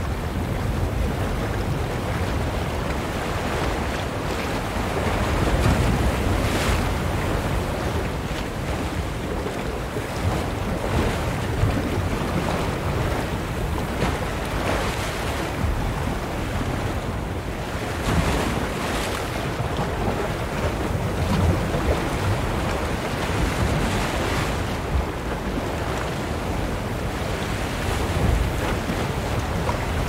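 Ocean surf washing continuously onto the shore, with waves swelling and splashing every few seconds.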